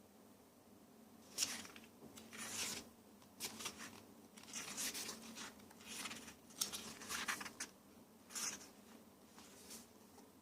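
Packaging being opened by hand: a series of short, scratchy rustling and tearing sounds of plastic or paper wrapping, irregular and a second or so apart.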